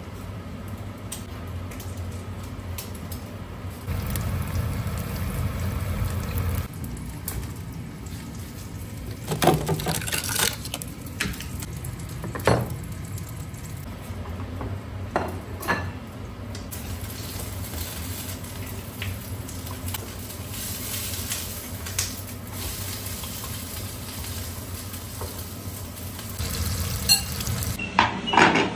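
Food sizzling and frying in a frying pan, with a few sharp clinks and knocks of the pan, lid and utensils in the middle.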